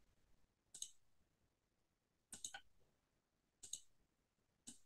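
Computer mouse button clicking: four quiet groups of short clicks about a second apart, several of them double clicks, as a curve is drawn point by point with a drawing tool.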